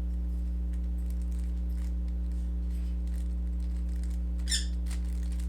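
Steady low electrical hum, with faint scattered clicks of a Rubik's cube being turned through algorithms. A short high bird chirp comes about four and a half seconds in.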